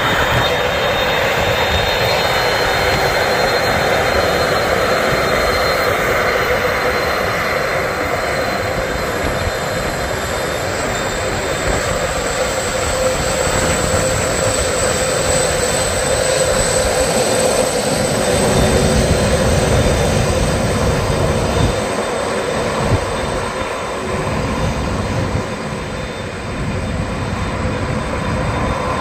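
Lockheed C-5M Super Galaxy's four General Electric F138 (CF6-80C2) turbofan engines at taxi power as the jet rolls past: a steady jet roar with a high fan whine over it.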